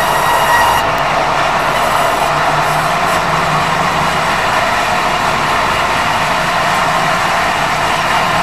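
Steady running noise of a vehicle with a low hum. A high squealing tone dies away about a second in.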